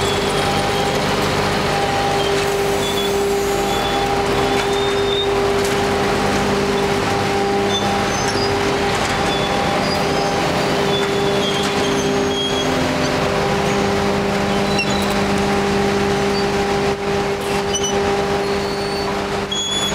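An industrial crushing and shredding machine running steadily: a loud, even motor hum with a constant mechanical noise of material being processed.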